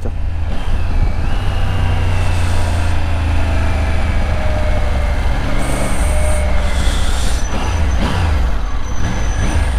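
Triumph Tiger 900's three-cylinder engine decelerating on a closed throttle, its note falling as the bike slows and is shifted down through third, second and first, under a heavy rush of wind.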